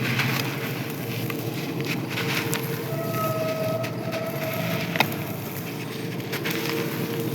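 Dry clay or sand crunching and crumbling, a dense run of small crackles with one sharp snap about five seconds in. A thin steady tone sounds for about a second and a half near the middle.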